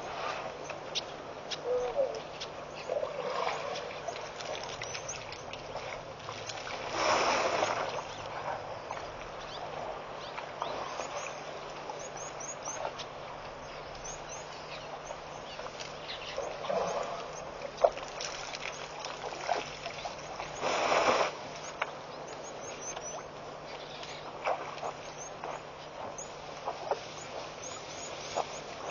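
African elephants drinking at a waterhole: water splashing and pouring from a trunk in two louder surges about a second long, one about a quarter of the way in and one about two-thirds through. Small birds chirp now and then over a steady outdoor hiss.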